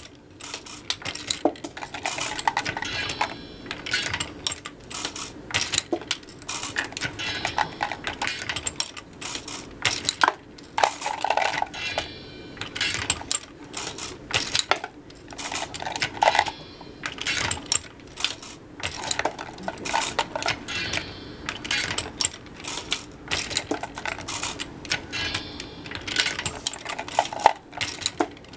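Lee Load-Master progressive reloading press being cycled, with repeated metallic clicks and clinks of the press and its brass cartridge cases.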